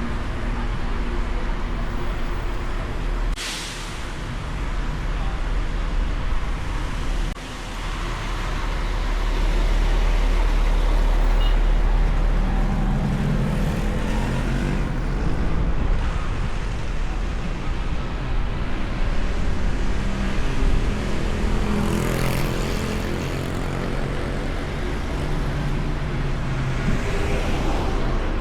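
City street traffic heard from a hood-mounted camera on a moving car: a steady low rumble of engines and tyres, with other vehicles passing. A few short hisses cut through, the sharpest about three seconds in.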